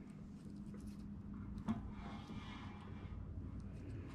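Faint handling noise as an aluminium part is set in a DRDT-2 dimpling tool, with one light click about halfway through.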